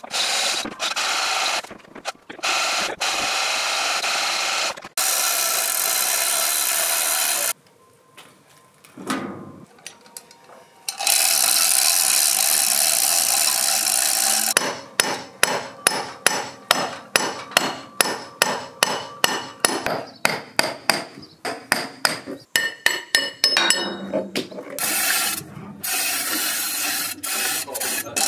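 Hand-operated chain hoist ratcheting as it lifts a heavy oak beam: a regular run of sharp clicks, about two to three a second, through the middle stretch, set among stretches of dense clattering noise that stop and start abruptly.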